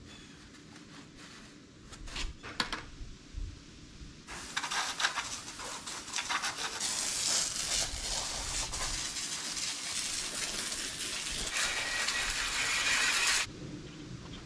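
Garden hose spraying water, starting suddenly about four seconds in, growing louder a few seconds later and cutting off abruptly near the end. A few sharp clicks come before it, about two seconds in.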